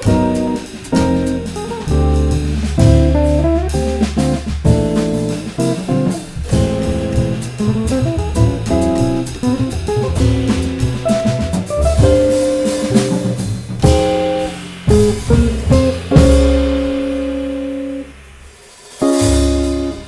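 Jazz trio playing: electric guitar lines over double bass and drum kit. Near the end the band holds a long chord, drops away briefly, then strikes a loud accented hit.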